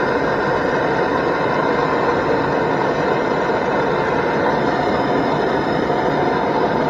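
Handheld blowtorch flame running with a steady rushing hiss, held on a copper pipe joint to heat it for soldering.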